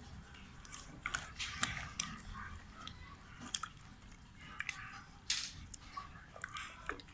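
Wooden spoon stirring and turning soft red pepper pieces in a stainless steel pot: wet squelching with irregular clicks and knocks of the spoon against the pot.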